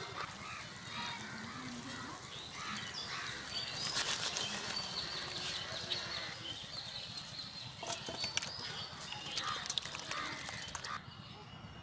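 Thick chicken curry being scraped and tipped out of a metal kadai into a steel bowl: metal-on-metal scrapes and knocks, loudest about four seconds in and again around eight seconds. Birds chirp in the background.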